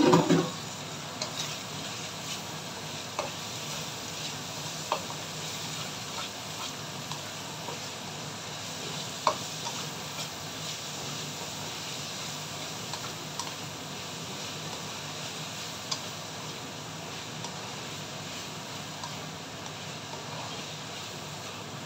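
Bacon and julienned carrots sizzling steadily in a wok while a spatula stirs and tosses them, with scattered light clicks and scrapes of the spatula against the pan. A louder knock comes in the first half-second.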